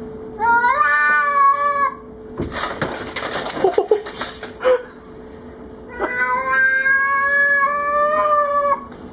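Domestic cat giving two long, drawn-out threatening yowls, a territorial caterwaul at an intruding cat, with a clatter of vertical blinds and glass in between as it rears up against the door.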